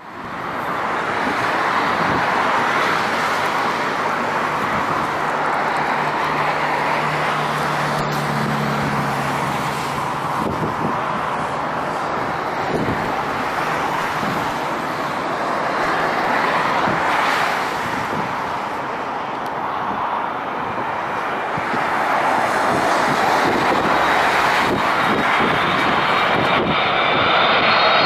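Jet engines of a Boeing 787-8 Dreamliner on final approach to land: a steady rush of engine noise that grows a little louder near the end, with a high whine coming in as the aircraft nears.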